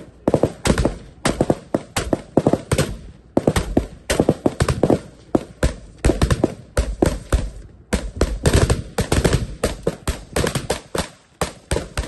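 Several assault rifles firing rapid single shots and short strings that overlap one another, with brief pauses a few times.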